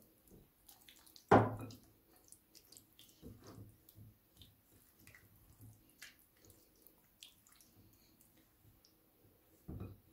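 Wet squelching and squishing of hands working a thick yogurt-and-spice marinade into a raw whole chicken, in soft irregular bursts. A sharp thump about a second in is the loudest sound, with a smaller one near the end.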